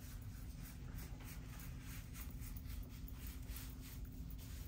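Faint rhythmic scrubbing of a gauze swab on a freshly shaved scalp, about three strokes a second, as antiseptic is rubbed over the hair-transplant donor area.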